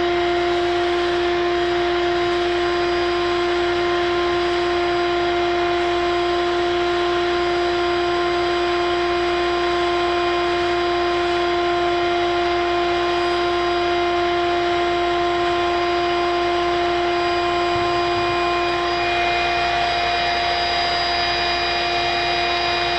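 A vacuum motor running steadily: a constant, even hum and whine over a rush of air, unchanging throughout.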